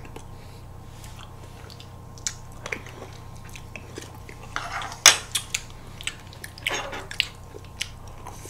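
Spoon and fork clinking and scraping in a paper ice-cream tub, mixed with bites and chewing of a crunchy-coated ice cream bar. The sharpest clink comes about five seconds in.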